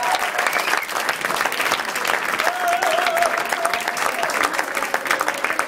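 Audience applauding, a dense steady clatter of many hands clapping, with a wavering cheer rising above it about halfway through.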